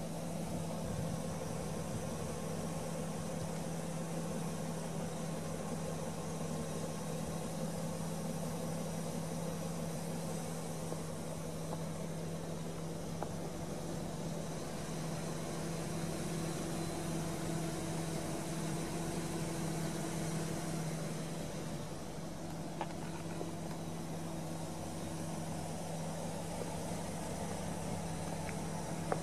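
BMW Alpina B10 V8S's 4.8-litre V8 idling steadily, a constant even hum with no revving.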